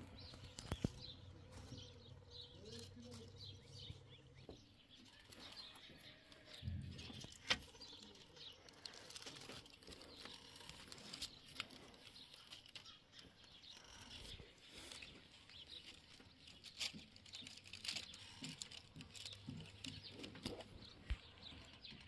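Faint, scattered soft taps and clicks as small white balls are set down by hand on a reed mat and metal trays, with a few faint bird chirps.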